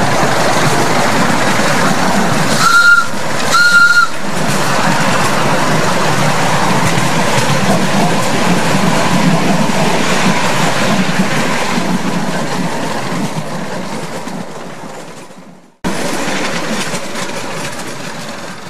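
Miniature ride-on steam locomotive running along the track, giving two short whistle blasts about three and four seconds in; the running sound then fades away near the end.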